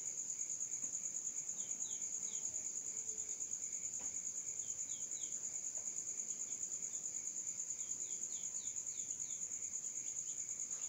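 A steady, high, evenly pulsing insect trill like crickets, with small groups of short, faint, falling chirps every second or two.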